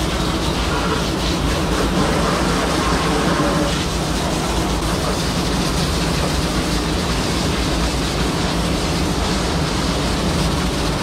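Water jet from a fire hose spraying onto a milking robot's stainless-steel housing and stall floor, a steady hiss and splash. A steady low machine hum runs underneath.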